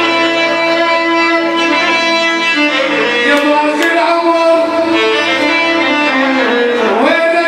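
Band music with no singing: a melody of held notes over an accompaniment, with a pitch slide down and back up near the end.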